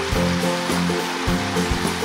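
Background music with held low notes and a light regular beat, over a steady rushing hiss of running water.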